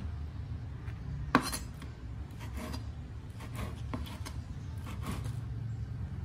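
Cleaver slicing fried tofu into strips, its blade knocking on a plastic cutting board at each cut, several knocks about a second apart, the sharpest about a second and a half in. A steady low hum runs underneath.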